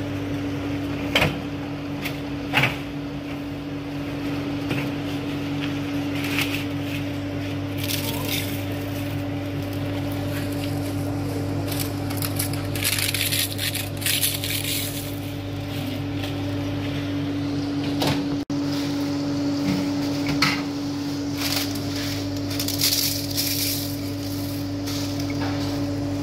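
Dry, crisp leaves crackling as they are handled and crumbled by hand, in several bursts, over a steady machine hum.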